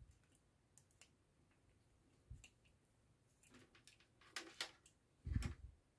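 Faint clicks and scrapes of plastic and metal as a push-button contact block is handled and its terminal screw worked with a screwdriver, with a louder, duller knock near the end.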